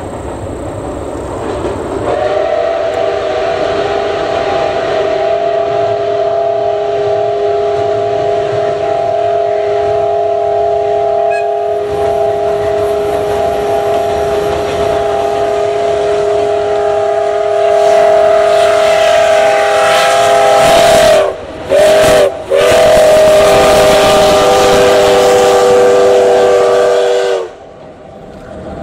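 D51 steam locomotive's chime whistle blowing one very long chord of several tones, broken twice near the end and then cut off, over the rumble of the train running across a steel girder bridge.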